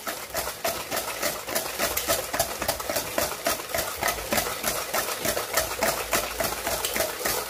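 Wire whisk beating a liquid batter of oil, brown sugar and eggs in a stainless steel bowl: rapid, even clicking and scraping strokes against the metal, several a second, as the mixture is creamed until thick.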